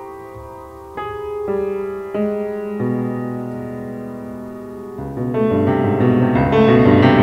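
Solo grand piano playing sparse chords that ring on after each strike, then a busier, louder passage of quicker notes from about five seconds in.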